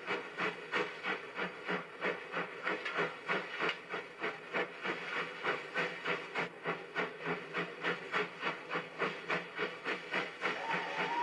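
Steam locomotive working up a grade, its exhaust chuffing in a steady beat of about two to three beats a second over a hiss of steam. A steam whistle begins to sound just before the end.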